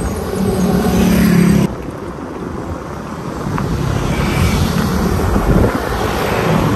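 Vehicle and road noise heard while riding, with wind rushing on the microphone. A steady low engine hum stops abruptly about a second and a half in.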